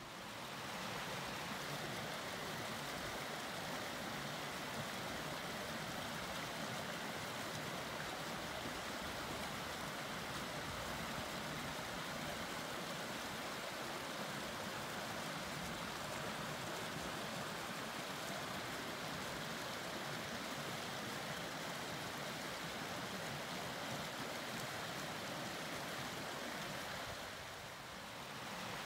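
A small woodland stream running over rocks, a steady even rushing of water. It swells in over the first second and dips briefly near the end.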